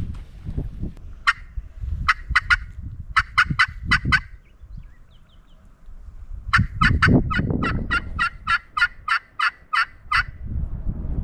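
Hen turkey yelps on a hunter's turkey call, in three runs: a few notes, then five, then a long run of about a dozen at three or four a second. They are called to get a gobbler to answer. Wind rumbles on the microphone underneath.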